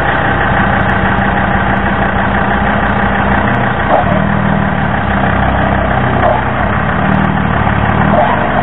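Engine of an off-road 4x4 truck running steadily, its note shifting about halfway through and again near the end.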